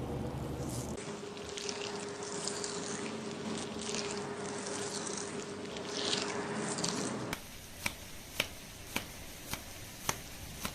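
Wet squishing and crackling of lathered hair and scalp being scrubbed during a shampoo. Near the end this gives way to a run of six sharp taps, about two a second.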